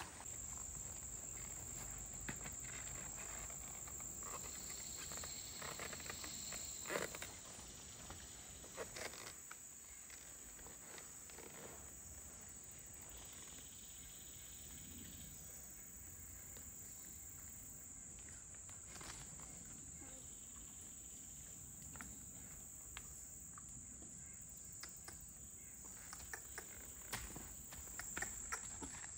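Steady high-pitched drone of insects, with a few faint, scattered hoof steps of a walking horse on a dirt trail.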